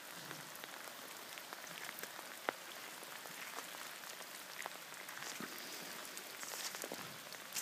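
Steady rain falling: a light, even hiss with scattered drop ticks, and one sharper tick about two and a half seconds in.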